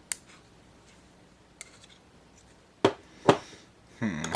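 A small magnet clicking against the body of a padlock to test whether it is steel rather than aluminum. There are sharp separate clicks, the two loudest about three seconds in.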